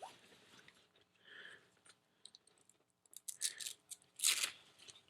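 Plastic parts and packaging being handled: scattered light clicks and crinkling, with the loudest short burst a little after four seconds in.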